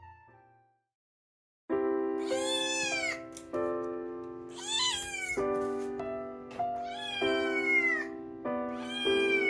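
Background music with steady chords, over which a cat meows four times, each a drawn-out call falling in pitch, timed with the chord changes.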